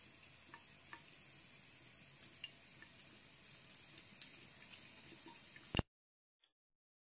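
Thin stream of water trickling from a bathroom faucet into a sink, faint and steady, with scattered small ticks and splashes. It cuts off suddenly near the end.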